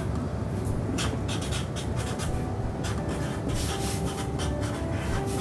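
Felt-tip markers scratching across poster paper in short, irregular strokes, over a steady low room hum.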